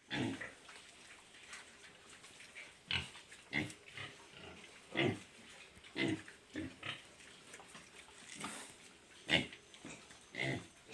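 Pigs grunting, about a dozen short calls at uneven intervals, with the loudest ones about three, five, six and nine seconds in.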